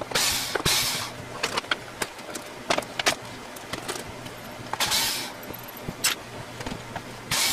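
Cordless drill whirring in short bursts as it backs screws out of a plywood mounting board: two quick bursts at the start, another about five seconds in and one near the end. Clicks and knocks of handling fall in between.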